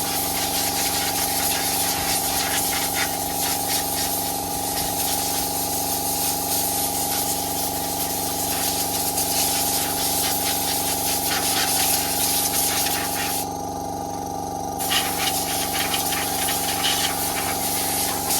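A powered cleaning jet hissing steadily over a constant electric motor hum as the underside of a scooter is blasted clean. About two thirds of the way through, the jet stops for a second while the motor keeps running, then starts again.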